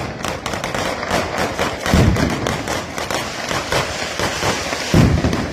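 Mascletà firecrackers going off in a dense, continuous crackling barrage, with a heavy boom about two seconds in and another near the end.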